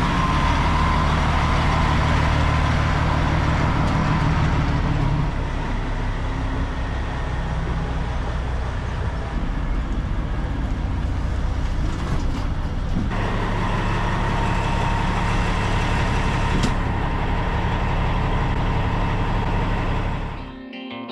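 Heavy truck engine running steadily; its note drops about five seconds in and picks up sharply again a little past halfway.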